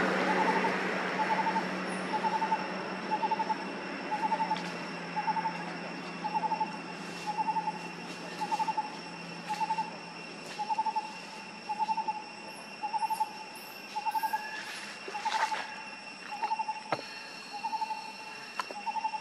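A bird calls a short, quickly pulsed hoot over and over, about once a second, with a steady high insect drone beneath it.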